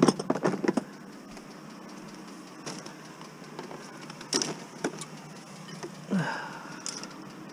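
Plastic household junk being handled and shifted: a quick run of clattering knocks at the start, then a few separate knocks and a brief scrape over steady background noise.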